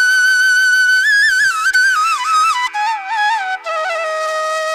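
Background music: a solo flute playing a slow melody with sliding, ornamented notes over a steady drone. It holds a long high note, steps down, and settles on a held low note near the end.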